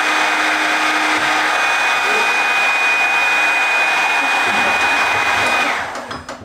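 Electric heat gun blowing steadily with a high whine while stripping paint from a wooden door; it is switched off about six seconds in and winds down.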